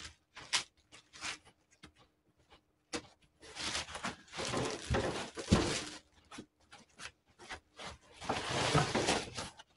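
Box cutter scraping and cutting at styrofoam packing inside a cardboard box, with scattered clicks and knocks. There are two longer stretches of scraping, the first around the middle, with a sharp knock, and the second near the end.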